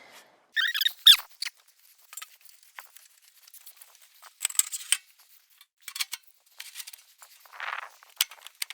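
Short squeaks about a second in, then scattered light clicks and a brief scrape near the end, as a roof tile is worked into place around a chimney pipe.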